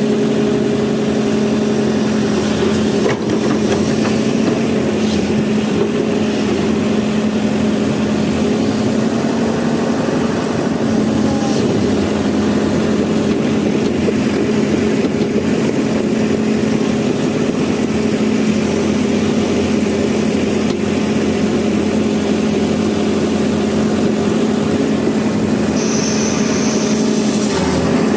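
Hyundai 140 excavator's diesel engine running steadily, with an even drone that holds the same pitch throughout.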